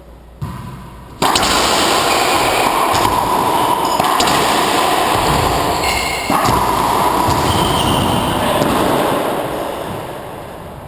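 A racquetball doubles rally in an enclosed court. The ball smacks off racquets and walls several times, and sneakers squeak on the hardwood floor, all over a loud, steady rush of echoing noise. The noise starts suddenly about a second in and fades near the end as the point finishes.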